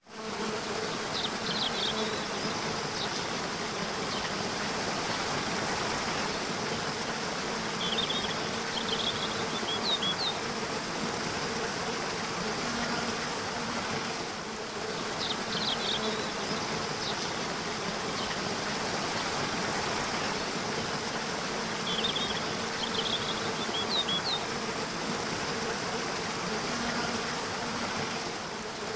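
Waterfall rushing steadily, with short bursts of bird chirping that recur about every seven seconds and a steady buzzing hum underneath.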